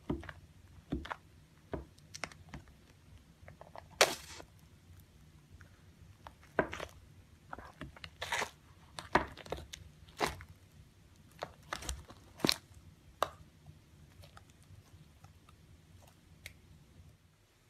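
Fluffy white slime topped with sprinkles being scooped and pressed with a metal spoon in a plastic cup, giving irregular crunchy crackles and pops. The loudest comes about four seconds in, and a cluster follows between about six and thirteen seconds.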